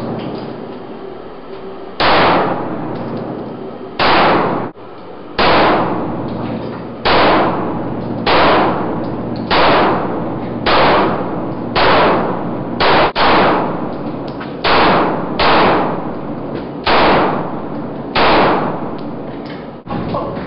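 Pistol shots in an enclosed indoor range, about fourteen single shots spaced roughly a second apart. Each loud crack is followed by a long echo that dies away over about a second.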